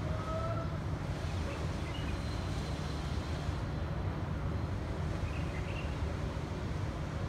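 Steady low traffic rumble with a few faint bird calls over it: a short rising whistled note just after the start, then brief high chirps around two seconds in and again about five and a half seconds in.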